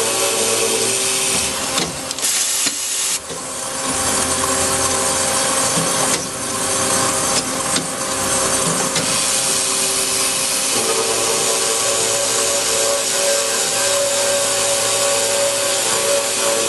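Carbide-tipped circular cold saw cutting solid round metal bar: a loud, steady hiss of cutting over a hum. Two breaks come with separate clunks and knocks as the saw head cycles and the bar is fed on, and the steady cutting sound comes back about eleven seconds in.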